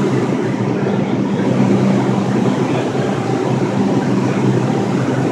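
Bombardier R142 subway train standing at the platform, giving off a steady electrical and mechanical hum with a low drone.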